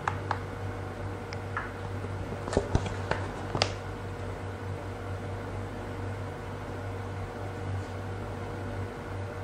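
A steady low hum, with a few light taps and clicks in the first four seconds as fingers tap on a tablet's screen.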